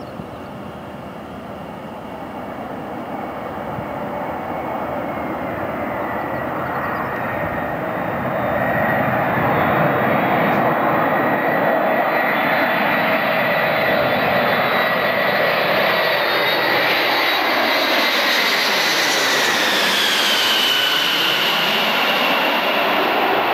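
Boeing 747 jet engines on a low landing approach, growing louder for the first several seconds as the airliner closes in. A high turbine whine runs over the noise and drops in pitch near the end as the four-engine jet passes overhead.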